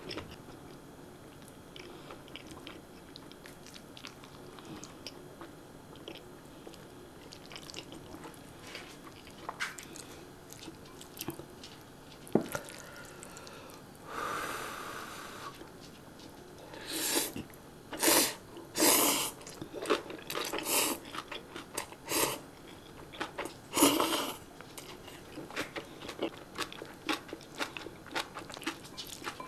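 Close-up eating of instant ramen noodles: quiet chewing for the first half, then a long slurp of noodles about halfway through, followed by a run of loud, short slurping and chewing sounds.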